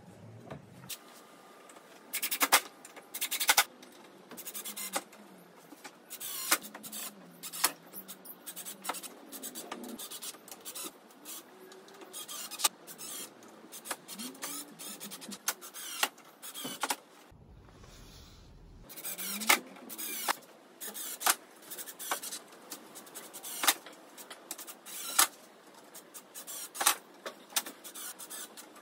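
Cordless drill-driving screws into a pine slat rail in many short bursts, the motor whirring for a moment at a time, about once a second.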